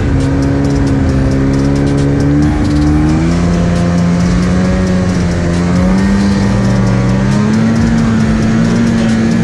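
Snowmobile engine running steadily under load as it tows a snowboarder on a rope. Its note shifts about three seconds in, then climbs slowly as the sled picks up speed.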